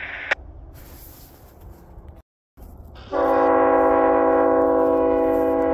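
A scanner radio's hiss cuts off with a click just after the start. About three seconds in, the approaching Canadian Pacific freight locomotive sounds its air horn in one long, steady multi-note chord.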